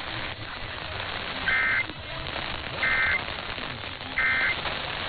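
Three short Emergency Alert System SAME digital data bursts, each a brief buzzy two-tone screech lasting about a third of a second, repeated about a second and a half apart over steady radio static. Short triple bursts like these make up the end-of-message code that closes an alert.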